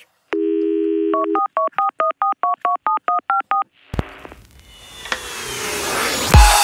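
Telephone dial tone, then a quick run of about a dozen touch-tone keypad beeps dialing a number. A click follows, then a rising swell that leads into electronic music.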